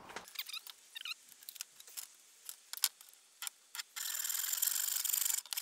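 Scattered light clicks and taps of a tape measure and wood being handled, then near the end a hand saw cutting through a thin wooden batten for about a second and a half.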